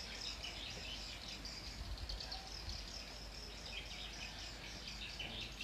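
Faint, continuous background chirping, many short high calls overlapping, over a low steady hum.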